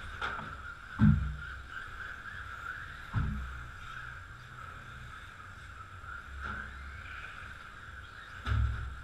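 Radio-controlled touring cars lapping an indoor track, heard as a steady high whine. Three dull thumps break through, about a second in, a little after three seconds and near the end; the first is the loudest.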